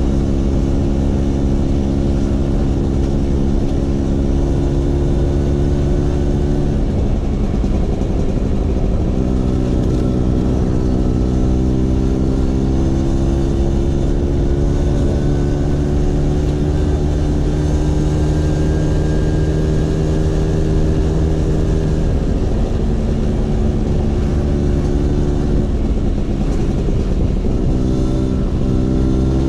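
Vespa PX 150's two-stroke single-cylinder engine running through a DRC Victory racing exhaust, holding a steady note that breaks off briefly about seven seconds in, then climbs slowly, with further changes in pitch near the end.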